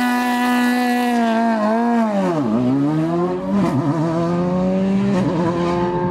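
Rally car engine held at steady high revs on the start line, then launching: the revs sag hard about two seconds in as the drive takes up, then climb again as the car pulls away. Two upshifts follow, each marked by a crack.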